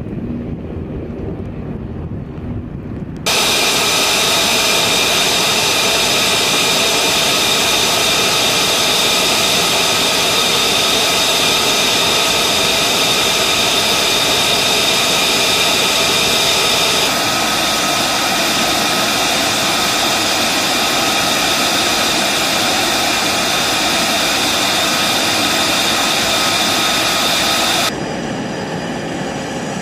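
F-35 Lightning II jet engines running on the ground: a loud, steady rush of jet noise with high whining tones. The sound changes abruptly about three seconds in, again about halfway through and near the end, and it is duller and quieter before the first change.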